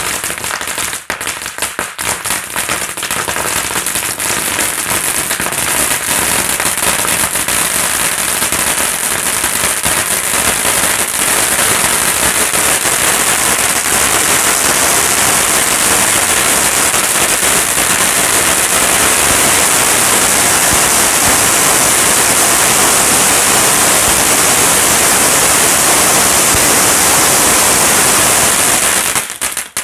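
Crackling conic firework fountain burning: a rapid crackle over a hiss, sparser for the first several seconds, then dense and steady, cutting off abruptly just before the end.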